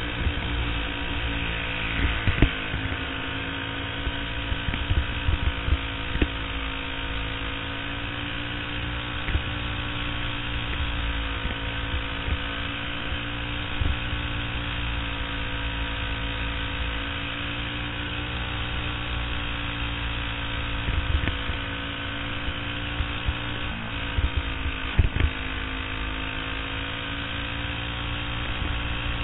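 Racing kart's small engine buzzing at high revs close up on board, its pitch dipping and rising gently through the corners. A few short knocks and rattles cut through, the loudest about two seconds in and near the end.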